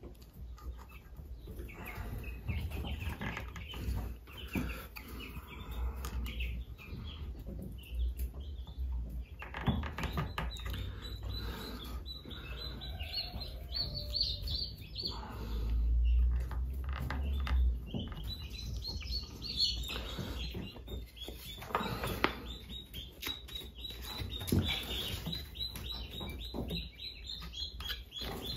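Small birds chirping and twittering almost without a break, busiest from about ten seconds in. There are a few sharp knocks from wooden beehive frame parts being handled.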